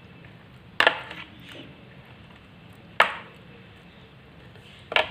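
Stirring bathua greens into thick curd in a bowl, with three sharp knocks of the mixing utensil against the bowl about two seconds apart.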